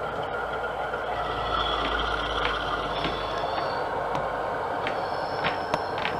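Sound-fitted O gauge model diesel locomotive running, its recorded engine sound playing steadily from the model's onboard speaker, with a low rumble that fades about four seconds in and a few sharp clicks toward the end.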